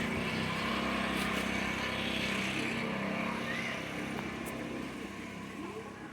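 A motor vehicle's engine running past, a steady hum that holds and then fades away over the last couple of seconds.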